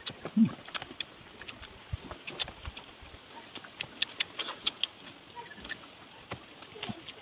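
Close-up mukbang eating sounds: irregular wet mouth clicks and lip smacks of people chewing charred barbecued turtle meat with rice, with a brief low hum about half a second in.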